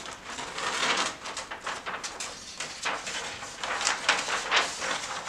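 Large paper pages of an oversized picture book being turned, a run of rustling and crinkling with small crackles.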